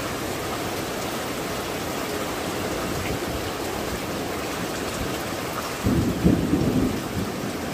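Steady rain falling on clay tile roofs and leaves, with a low rumble of thunder starting about six seconds in that rises above the rain in a few swells.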